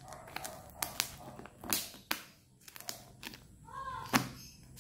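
Scissors snipping through the thick plastic wrapping of a compressed clothing bale: a handful of sharp, separate snips with light crinkling of the plastic between them. The wrap is tough and hard to cut.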